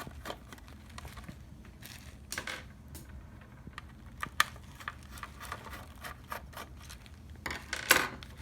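A screwdriver backing out the two small screws that hold the turn-signal repeater in a Hyundai Azera side-mirror housing: scattered light clicks and scrapes of metal tool on plastic, with a louder clatter near the end.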